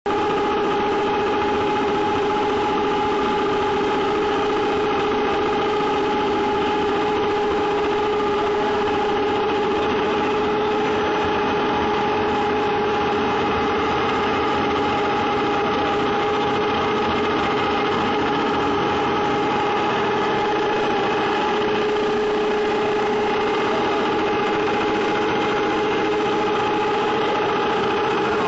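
DP85/DP90 twin-screw extruder running steadily under load while extruding steam-conditioned feed pellets: a continuous machine hum with a clear held whine and a second, higher whine above it.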